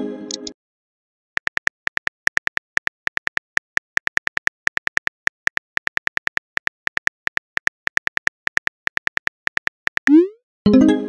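Rapid run of virtual phone-keyboard key clicks as a text message is typed out, following the fading chime of a just-sent message. Near the end comes a quick rising swoosh and a chime as the typed message is sent.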